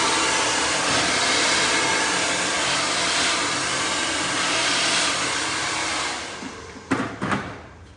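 Handheld hair dryer blowing steadily on natural hair, then dying away about six seconds in. Two short knocks follow near the end.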